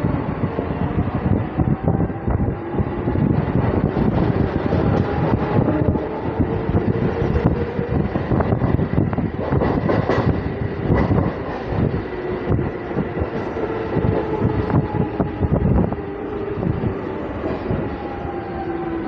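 Hyderabad MMTS electric local train running as it pulls out of a station, heard close beside the coaches: wheels clattering over the rails with heavier knocks now and then, a rush of air, and a drawn-out whine under it.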